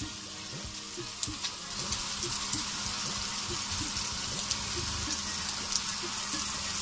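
Boneless chicken frying in hot ghee in a karahi: a steady sizzle with scattered small crackles and clicks.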